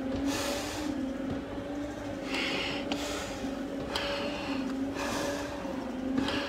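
Firefighter breathing hard through an SCBA face piece and regulator: a hiss on each inhale, about every two seconds, with faint clicks. A steady mechanical hum runs underneath.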